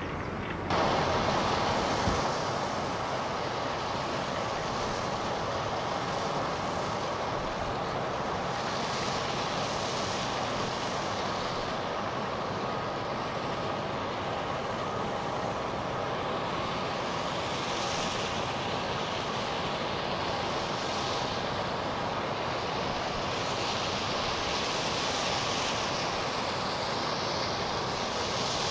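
A passing container ship's engines run as a steady mechanical drone with a hiss over it, heard across the water. The drone steps up suddenly about a second in and then holds even.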